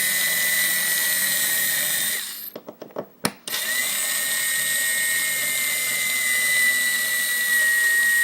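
Cordless electric screwdriver running as it backs out the tailpiece screws of a mortise lock cylinder: a steady motor whine that stops about two seconds in, a few clicks and one sharp click, then runs again with its pitch sagging slightly. Its battery is running low.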